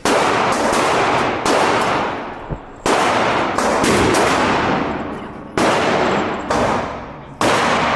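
Gunshots fired at a shooting range: about ten shots at irregular spacing, some in quick pairs. Each shot has a long echoing tail.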